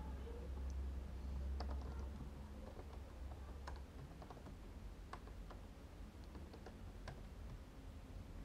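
Computer keyboard being typed on: a scattered handful of faint keystroke clicks over a steady low hum.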